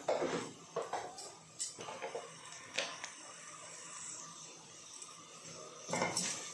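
A spoon stirring vegetables and spices in a cooking pot, knocking and scraping against the pot a few times in the first three seconds, followed by a faint steady hiss from the pot.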